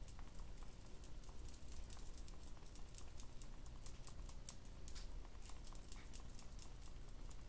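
Faint, rapid, irregular light clicking and tapping as a makeup sponge is dabbed against the face to blend concealer.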